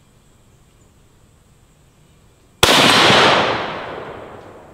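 A single shot from a Ruger American Ranch Rifle, a bolt-action in 7.62x39, a little over halfway through, its echo rolling off and fading over about two seconds.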